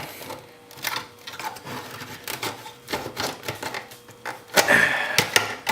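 Plastic casing and circuit board of a battery charger cracking and clattering as they are pried and broken apart by hand. A run of sharp clicks and snaps, with the loudest cluster about five seconds in.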